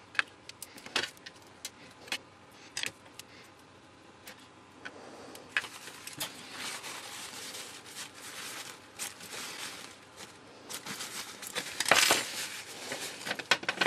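Side cutters snipping and cracking apart the plastic casing of a small electrochemical carbon monoxide sensor cell, with a series of sharp clicks and small pieces clinking onto the work surface. About five seconds in it turns to steadier crunching and scraping as the casing is broken open, with a few louder snaps near the end.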